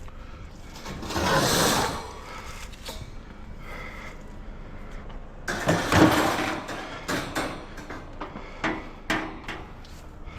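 Scrap being handled: two scraping, rattling noises, the second louder, about a second in and past the middle, then a string of short knocks and clanks.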